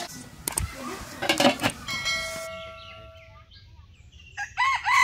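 A rooster crowing near the end, after a few knocks and clatter in the first half.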